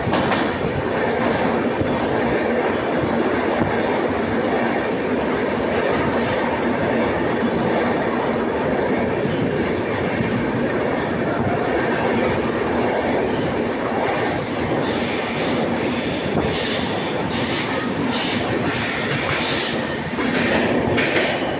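Train running on the rails, heard from inside a carriage: steady wheel-and-rail noise, with a high wheel squeal for a couple of seconds about two-thirds of the way through.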